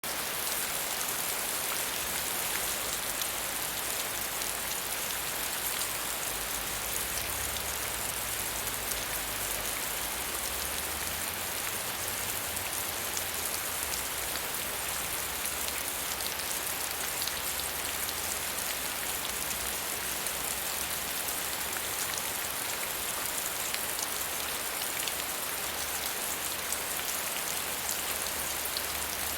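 Medium rainfall: a steady, even hiss of rain with many fine drops pattering on surfaces.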